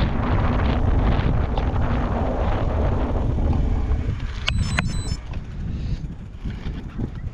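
Wind buffeting the action camera's microphone over the rumble of a mountain bike riding along; the noise eases off about four seconds in as the bike slows. Around halfway a brief run of several high-pitched metallic rings sounds.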